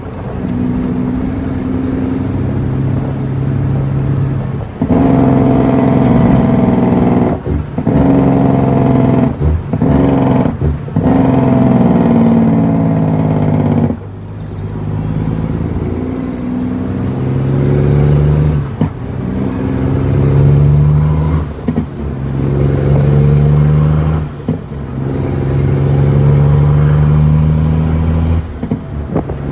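Western Star truck's diesel engine pulling hard, its pitch climbing over a few seconds and then dropping, again and again, with brief breaks in the sound between climbs like gear changes.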